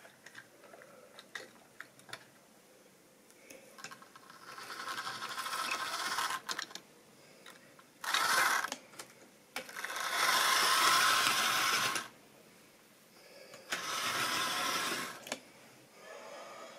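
Model railway locomotive's small electric motor and gears whirring as it runs on sectional track, with its wheels rattling over the rails, in four short runs, the first building up gradually. Small clicks of the models being handled on the track come before the runs.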